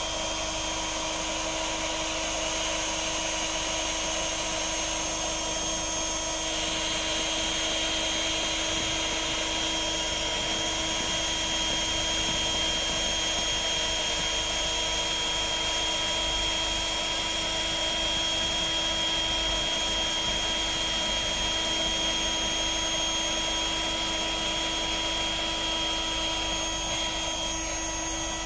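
Cheap electric airbed pump running steadily, its nozzle held on the valve of a PVC inflatable boat's air tube, blowing the tube up. A steady whirring drone over a hiss.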